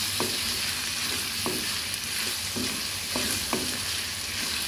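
Diced potatoes, onions, green chillies and tomatoes sizzling in oil in a metal wok while a spatula stirs them, scraping and knocking against the pan several times. The steady sizzle comes from the vegetables being sautéed.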